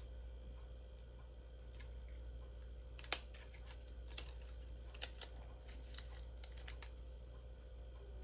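Faint scattered clicks and paper handling as glue dots are pulled off their roll and pressed onto a cardstock strip, the sharpest click about three seconds in and a few lighter ones about once a second after, over a low steady hum.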